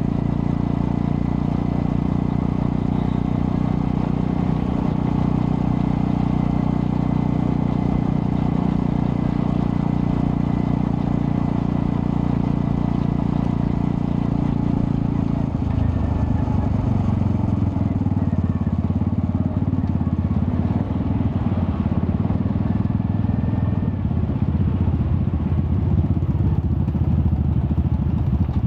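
Honda Astrea Prima 110cc single-cylinder four-stroke motorcycle engine running through a custom underbelly exhaust with resonator, steady at first. A little over halfway through, the note drops to a lower, rougher beat.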